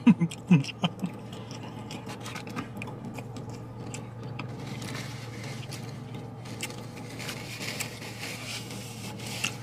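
Eating at takeout food: a plastic fork clicking and scraping in a paper-and-foil wrapped container, then a paper napkin rubbing across the mouth and beard in the second half, over a steady low hum.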